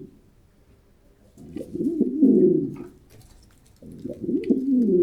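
Pigeon cooing: two low, warbling coo phrases, one starting about a second and a half in and another near the end.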